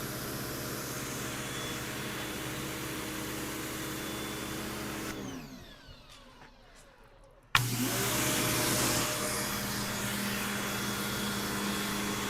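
Canadian Tire Certified 1800 PSI brushed electric pressure washer running with a steady motor hum and the hiss of its spray. About five seconds in, the trigger is let go and the motor winds down to a stop. About two seconds later it starts again abruptly with a click and runs steadily.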